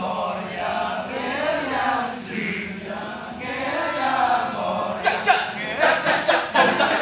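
Kecak chorus of men's voices: a sung chant with wavering pitch, then, about five seconds in, the rapid rhythmic "cak-cak" chanting begins.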